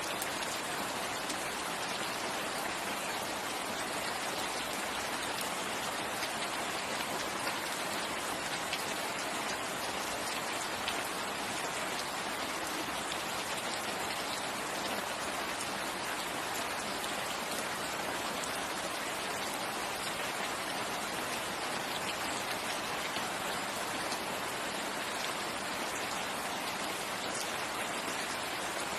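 Steady rain falling and pattering on surfaces, with scattered individual drops ticking through an even hiss.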